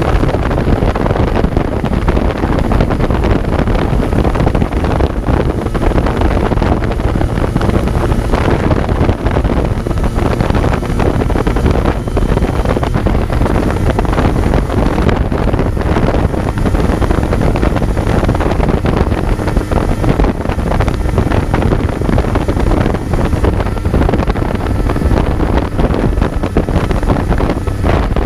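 Kawasaki Z900's 948 cc inline-four engine running under way, mixed with heavy wind noise buffeting the on-board microphone at riding speed. The sound stays steady throughout, with no distinct revs or gear changes standing out.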